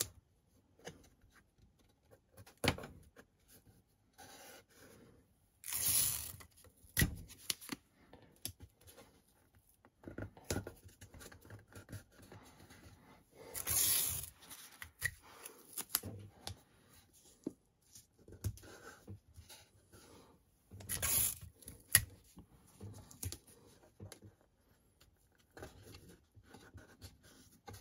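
Masking tape being pulled off the roll and torn into strips: three short rips several seconds apart, with small taps and rustles of the tape being pressed onto the panels in between.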